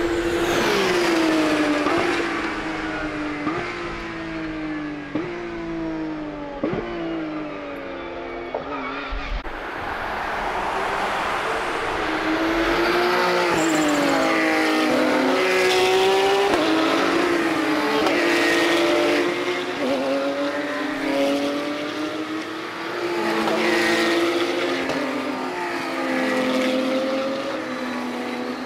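Porsche 911 GT3 Cup (Type 992) race cars' naturally aspirated flat-six engines at full throttle. At first one car shifts up through the gears, its pitch climbing and dropping about every second and a half. Then a pack of several cars passes, their engine notes overlapping and rising and falling.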